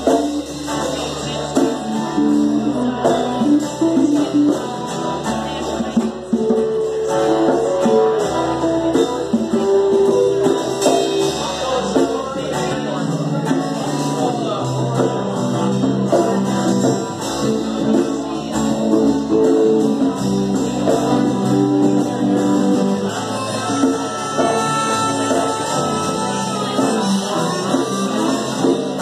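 Live rock band playing: two electric guitars, an electric bass and a drum kit.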